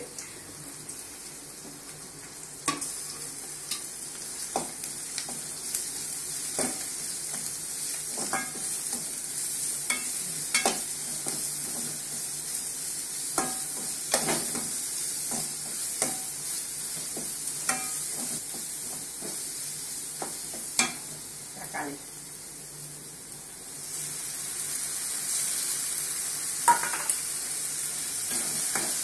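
Shallots and curry leaves sizzling in hot oil in an aluminium kadai, with a steel spoon scraping and clinking against the pan in irregular strokes as it is stirred. About three-quarters of the way through the sizzle grows louder as tomato purée goes into the hot oil.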